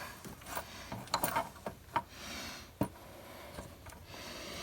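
Irregular metallic clicks and light knocks of hand tools and engine parts being handled during valve cover reassembly, with a few soft rustling stretches between them.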